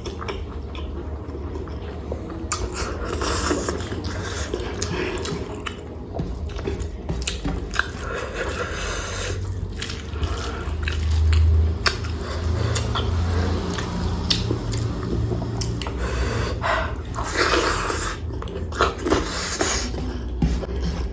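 Close-miked chewing and wet mouth sounds of a person eating rice with curry: repeated smacking clicks and squelches over a steady low rumble.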